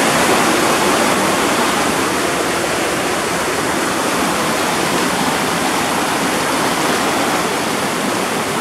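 Loud, steady rush of a river's flowing water close by, as it is being crossed.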